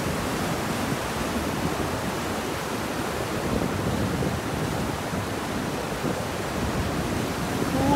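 Steady rush of a mountain river pouring over granite slabs and small cascades: an even, unbroken water noise.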